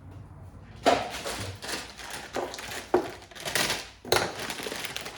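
Crinkling and rustling of packaging being handled, in half a dozen short bursts, as a new driveshaft boot kit is unpacked.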